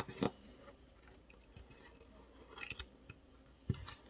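A few faint, scattered clicks and light knocks, with one just after the start, a small group past the middle and a duller knock near the end.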